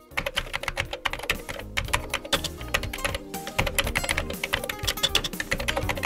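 Fast, irregular clatter of keyboard-typing clicks over a music bed.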